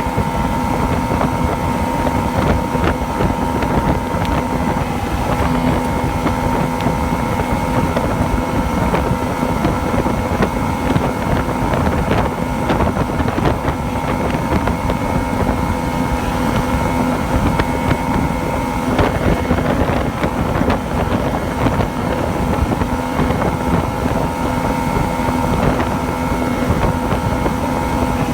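Yamaha two-stroke engine running at a steady speed, the engine being checked for a misfire and surge.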